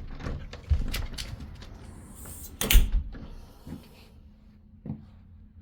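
A door being opened and shut: a few knocks and thuds, the loudest a little under three seconds in.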